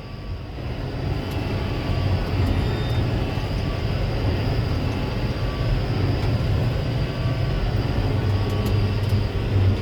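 Combine harvester running steadily while harvesting, a continuous low drone with machinery noise over it that swells slightly in the first couple of seconds and then holds.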